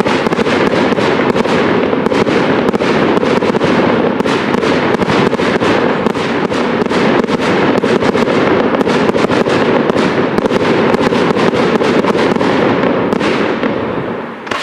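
Fireworks display: a dense, unbroken barrage of cracks and crackling as fans of comets are fired. It eases off near the end.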